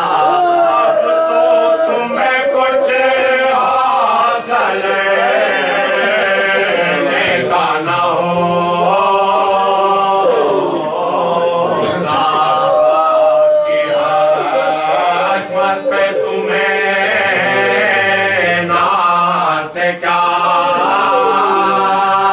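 Male voices chanting a marsiya, an Urdu elegy for Imam Husayn, sung unaccompanied with long gliding held notes.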